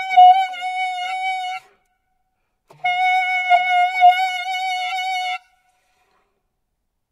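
Saxophone holding one steady high note, broken off about a second and a half in and taken up again on the same pitch for about two and a half seconds. The player runs chromatic fingerings under it while keeping the pitch from moving, an overtone exercise for control of the horn, with light clicks as the fingers change.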